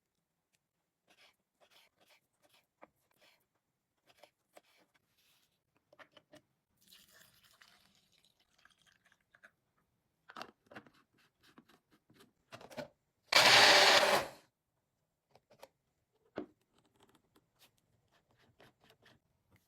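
Kitchen food-preparation handling sounds: scattered light clicks and taps, with one loud rushing burst lasting about a second past the middle.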